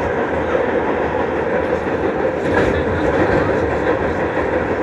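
Subway train running along the track with a steady rumble and wheel clatter.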